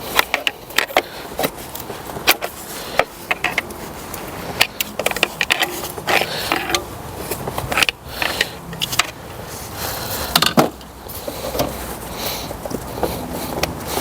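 Irregular clicks, knocks and scrapes of a coil pack being levered out of a Mercedes V12 engine and handled.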